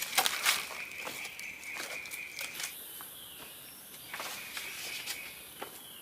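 Outdoor ambience: a steady high trill that runs for a couple of seconds, stops, and comes back about four seconds in, over light rustling and scattered clicks.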